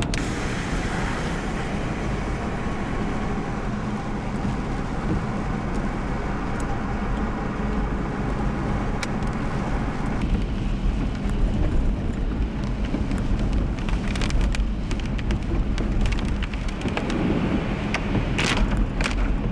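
Steady road and engine noise inside a car driving on wet pavement in heavy rain, with rain hitting the windshield. A few sharp ticks come near the end.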